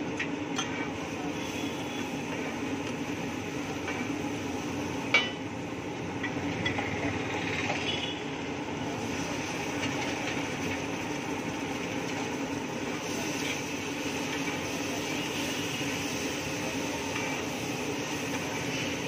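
Vegetables and spices sizzling on a large flat griddle (tawa) while a metal spatula scrapes, taps and clinks against it, over a steady low hum. One sharp metal knock stands out about five seconds in.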